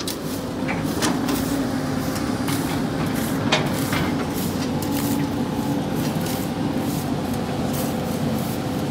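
Sany hydraulic excavator running steadily, its diesel engine and hydraulics giving a constant hum with a steady whine, with a few sharp clicks about a second and three and a half seconds in.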